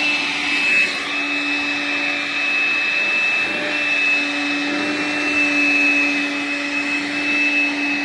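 Makita cordless stick vacuum running steadily with its nozzle drawn through a long-haired cat's fur: a continuous whine over rushing air, its pitch wavering for a couple of seconds about a second in.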